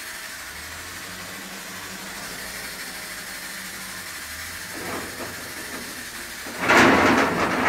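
Propane forklift's engine running steadily as it drives carrying a bin. About six and a half seconds in, a loud rush of noise cuts in for about a second.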